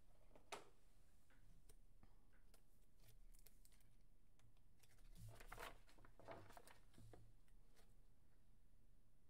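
Near silence with faint handling noises of trading cards and plastic card holders: a small click about half a second in and a soft rustle and clicks between about five and six and a half seconds in.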